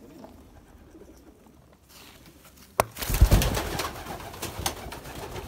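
Domestic pigeons cooing inside a loft. About halfway through there is a sharp click, then louder rustling and knocking.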